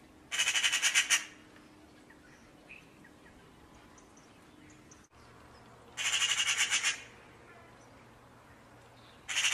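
Harsh, rattling corvid call, given three times, each call under a second long.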